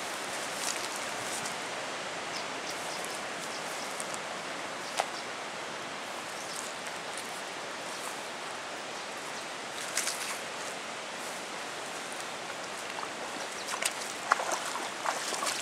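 Steady hiss of flowing river water and wind, with a few short sharp clicks about five and ten seconds in and a small cluster of them near the end.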